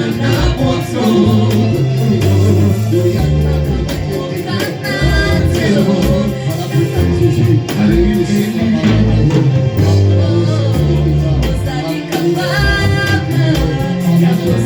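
Church worship music: voices singing over a band with a prominent moving bass line and a steady drum beat.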